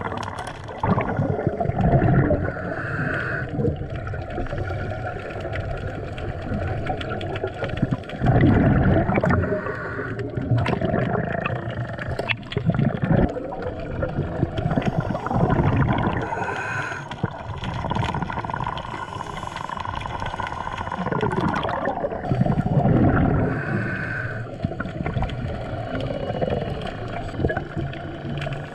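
Scuba diver's exhaled bubbles gushing from the regulator, heard underwater, coming in swells about every seven seconds with each breath.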